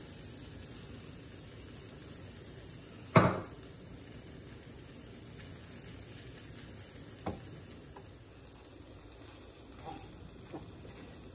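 Beaten eggs and vegetables frying in a nonstick pan: a steady, quiet sizzle while a wooden spatula stirs and scrambles them. A sharp knock about three seconds in and a lighter one about seven seconds in.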